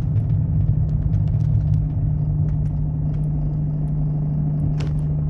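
Steady low drone of a car driving at highway speed, engine and tyre noise heard from inside the cabin.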